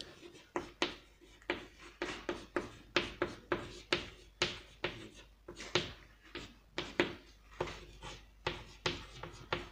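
Chalk writing on a chalkboard: a steady run of short taps and scratches, about two or three a second, as words are written out.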